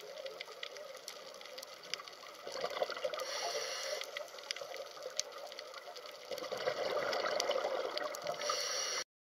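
Underwater water noise: a steady wash sprinkled with many small clicks and crackles, swelling about two and a half seconds in and again near the end, then cutting off abruptly.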